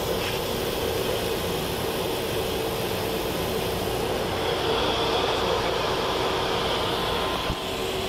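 Package air-conditioning unit running: a steady rush of air with a constant hum.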